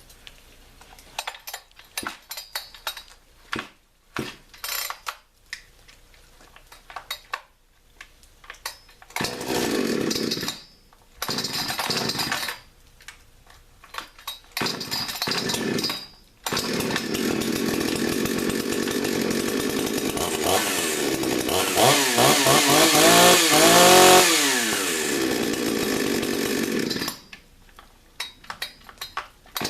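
XtremePower 82100 pull-start chainsaw being started on its newly replaced starter rope: a series of quick pulls, then the engine catches and dies several times. About sixteen seconds in it keeps running and is revved up and down, then it cuts out a few seconds before the end, followed by more pulls.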